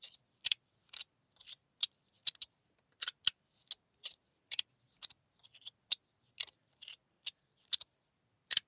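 Anodized aluminium fidget slider being worked by hand: its plates are slid back and forth and snap into place with sharp metallic clicks, two or three a second at an uneven pace.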